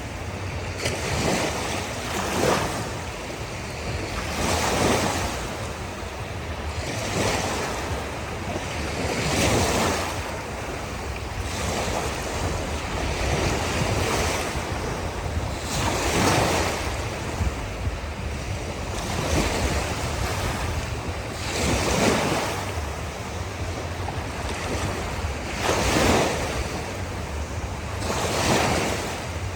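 Ocean waves breaking and washing on a shore, one surge every two to three seconds over a steady low rumble of surf, with some wind on the microphone.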